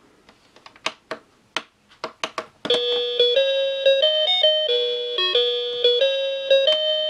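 Plastic keys of a children's toy learning laptop clicking under a finger a few times, then the toy's speaker plays an electronic beeping tune, one short note after another, from about two and a half seconds in.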